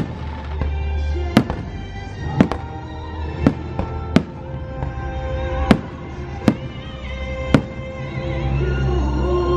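Aerial firework shells bursting, about eight sharp bangs roughly a second apart, over show music that swells near the end.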